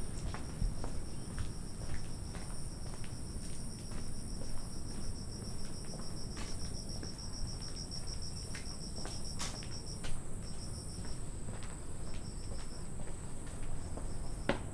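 Insects trilling: a high, rapidly pulsing trill that breaks into short bursts about two-thirds of the way through, over a second, higher steady drone and a low background rumble.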